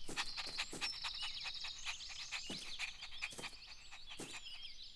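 Cartoon birdsong ambience: birds chirping, with a scatter of quick clicks and a few short downward-gliding sound effects.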